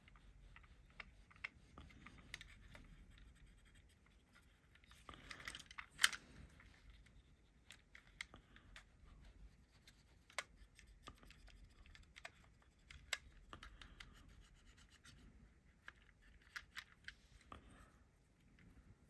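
Faint scratching and rubbing of a cotton bud being worked over a toy car, with scattered small clicks and taps as the car is handled; one sharper click about six seconds in.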